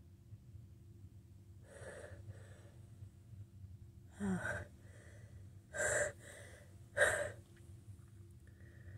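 A person with a head cold gasping in breaths as a sneeze builds but doesn't come. There are a couple of faint breaths about two seconds in, then three louder sharp gasps in the second half, the first with a brief rising catch of the voice.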